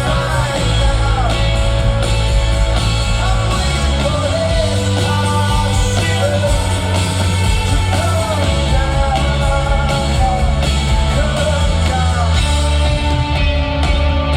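Rock band playing live, a male lead singer's melody over steady bass and electric guitar.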